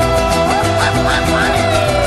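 Upbeat Latin music in an instrumental passage without singing, over a steady repeating bass rhythm.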